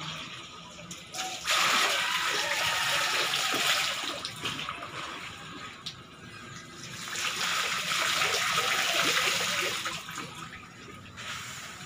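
Water poured through a plastic colander, pattering and splashing onto the surface of a filled tarpaulin fish pond, in two pours of about three seconds each.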